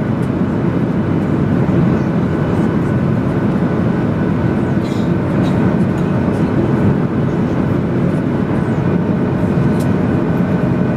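Steady cabin noise inside a Boeing 737-800 on approach: the CFM56 engines and airflow heard from a window seat, with faint steady tones over the noise.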